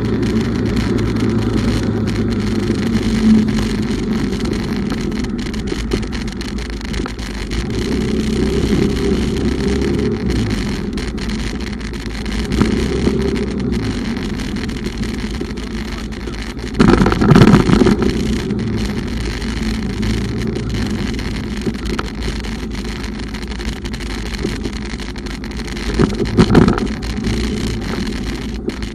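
Bumoto Regnum motorbike running under way, its engine mixed with wind and road noise. The sound is a steady low noise with two brief louder surges, one a little past halfway and one near the end.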